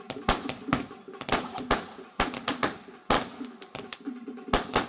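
Aerial fireworks bursting: a rapid, irregular string of sharp cracks and pops, several a second.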